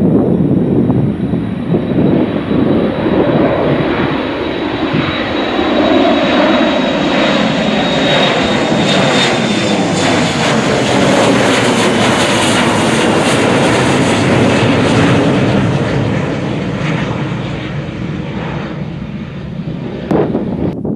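Twin turbofans of an Embraer E175 regional jet at takeoff power, climbing out and passing overhead: a loud jet roar with a thin high whine, its pitch sliding down as it goes over, then thinning out as it pulls away.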